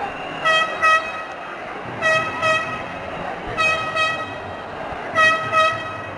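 A car horn tooting in a rhythmic pattern: two short toots close together, repeated four times about a second and a half apart, over the steady noise of a large crowd.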